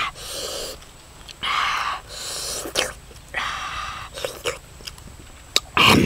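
Close-up eating sounds from a man eating grilled fish dipped in chili sauce: four breathy slurps, each under a second long, with lip smacks and chewing clicks between them.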